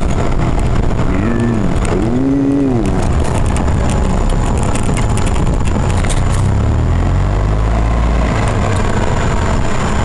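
Open vehicle driving along a road, its engine and road rumble running steadily under heavy wind noise on the microphone. The low rumble grows stronger in the second half. Two short tones rise and fall in pitch about one and two seconds in.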